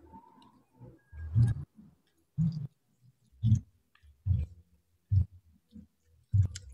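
Hands working rice and side dishes on a paper wrapper on the floor: short muffled thuds with a light rustle, about once a second.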